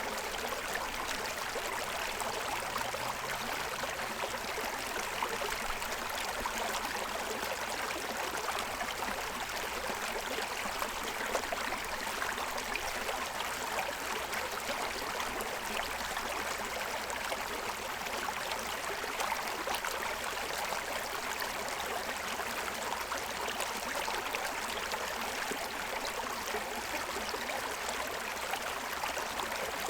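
Forest stream running over the stones of its bed: a steady rush of water with fine splashing and gurgling.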